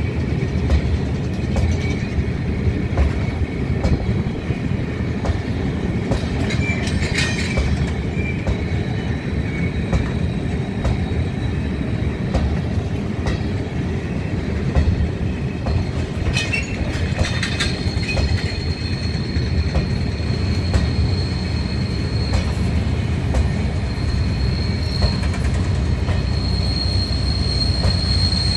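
Freight train of loaded flat wagons rolling slowly past, with a steady low rumble, small wheel clanks and squealing wheels. A thin high wheel squeal sets in about two-thirds of the way through and holds.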